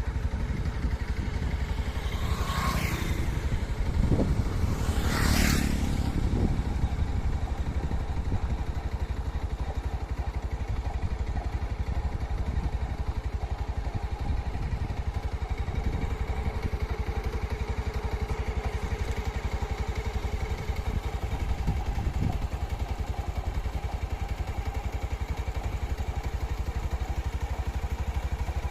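A motorcycle engine running steadily while riding along a road, with two brief whooshes a few seconds in.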